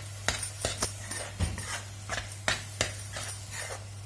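Metal spoon stirring thick mushroom gravy in a non-stick frying pan: irregular scrapes and knocks against the pan, a few a second, over a steady low hum.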